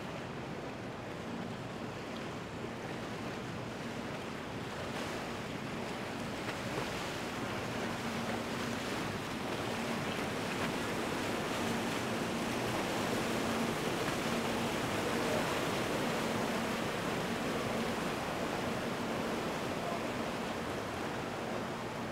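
Water rushing and churning in the wake of a Vanquish VQ52 motor yacht cruising past, with wind on the microphone and a faint low engine hum; it grows louder toward the middle.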